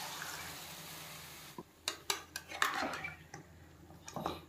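Water poured into a hot metal kadai of fried chicken feet in masala, a hiss that fades over the first second and a half. Then a spatula stirring the pieces knocks and scrapes against the pan several times.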